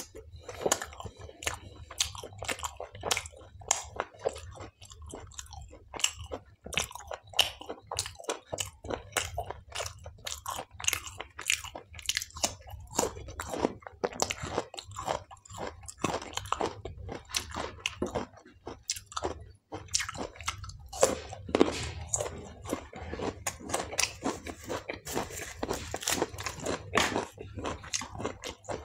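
Close-miked eating of palak paneer with naan and salad: continuous chewing and biting with many crisp, crunchy clicks, over a steady low hum.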